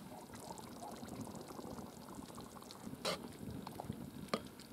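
Thick stew sloshing in a kazan as the lid comes off and a slotted metal ladle stirs it, with two sharp metal knocks about three and four and a half seconds in.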